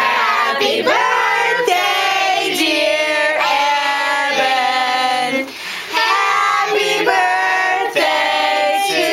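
Several voices singing a song together, women's voices among them, holding long notes. There is a short break about halfway through.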